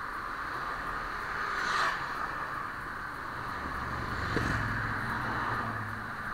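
Steady rushing noise of riding through city street traffic, with a motorcycle engine rumbling past from about three and a half to five and a half seconds in, loudest near four and a half seconds.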